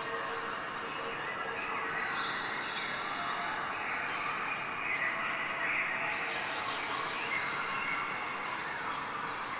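Steady outdoor ambience: an even hiss with faint bird and insect chirps, and no sharp events.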